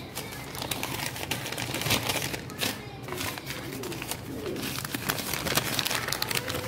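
Paper wrapping rustling and crinkling in irregular crackles as hands sort through paper-wrapped packets inside a cardboard box.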